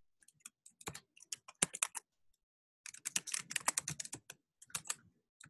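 Typing on a computer keyboard: quick runs of keystrokes, with a pause of about a second near the middle.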